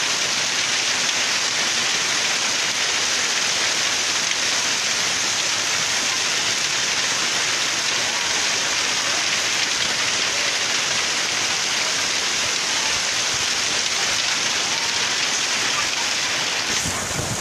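Heavy rain falling hard and without let-up, a dense, steady hiss.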